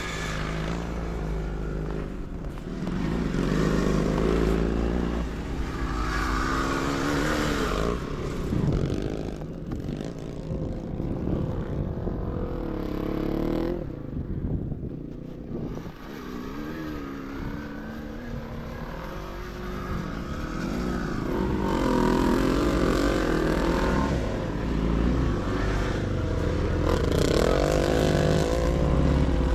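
Motocross sidecar outfits racing on the track, their engines revving up and dropping off again and again as the bikes accelerate, shift and pass.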